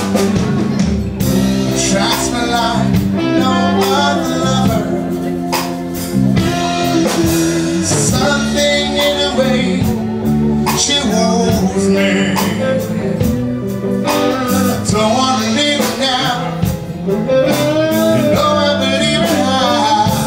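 Live band music: a man singing into a microphone over keyboard, electric guitar and drums.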